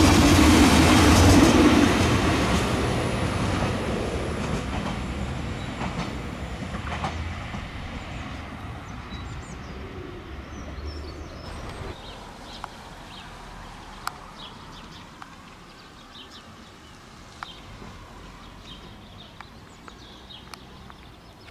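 Diesel multiple unit passing close by, its engine and wheels on the rails loudest at first, then fading steadily over about ten seconds as it draws away. Afterwards only a quiet outdoor background with a few small clicks and chirps.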